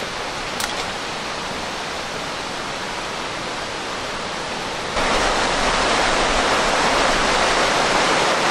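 Steady rushing of a stream running over rocks beside the path. It jumps abruptly louder about five seconds in.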